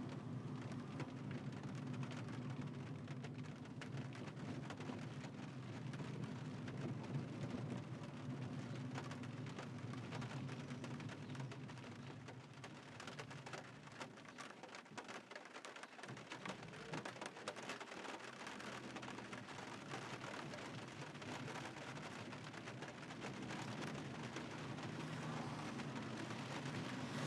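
Rain falling on a moving car: a dense patter of drop ticks over a steady low hum of engine and road noise. The hum fades away for a couple of seconds about halfway through, then comes back.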